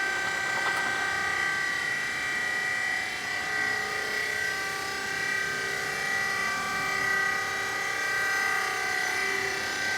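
Baling press machine running with a steady whine made of several held tones, a lower tone growing stronger about four seconds in.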